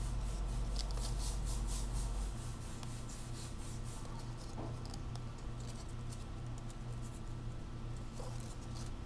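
Sheet paper crinkling and rustling as an origami model is folded and creased by hand, with rapid crinkles for the first few seconds, then sparser soft rubs. A steady low hum runs underneath.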